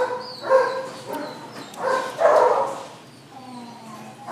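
Small dogs barking in a shelter kennel, a run of short sharp barks that thins out to fainter sounds for about the last second.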